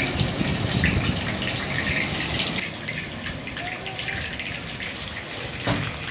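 Marinated chicken pieces deep-frying in hot oil in a wide metal kadai: a steady sizzle with many small crackling pops, a little quieter after about two and a half seconds.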